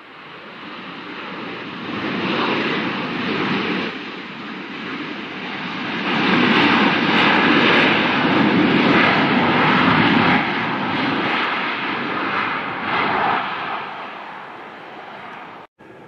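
Boeing 737 jet engines on its runway roll, a heavy rushing roar that builds to a peak and then fades as the jet passes. Near the end the sound cuts out briefly.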